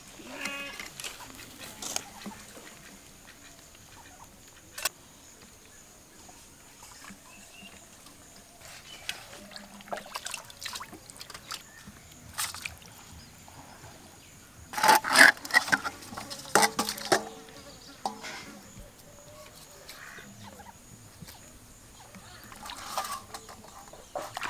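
Fish being washed by hand in a steel bowl of water: scattered clinks, knocks and small splashes, with a louder cluster of splashing and clattering about fifteen seconds in. A short animal call sounds near the start.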